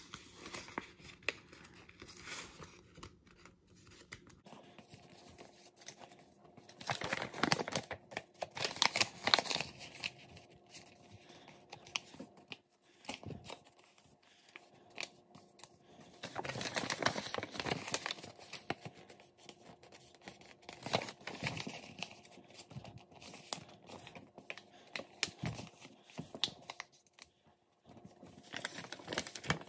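A sheet of letter paper being folded and creased by hand: crinkling and rustling, coming in bursts with quieter stretches between.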